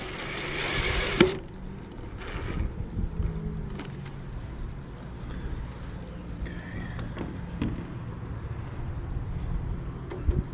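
Cordless drill driving a screw into the mast's sail track, running for about the first second and stopping with a sharp click. Afterwards a low steady hum with faint ticks and scrapes as the screw is worked by hand.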